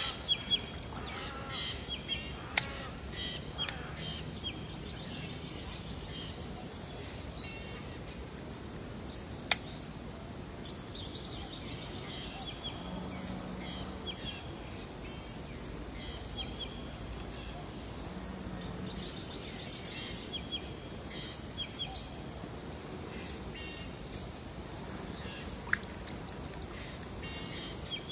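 Insects calling in one steady, unbroken high-pitched whine, with scattered faint bird chirps and a few sharp clicks, one about two and a half seconds in and another near ten seconds.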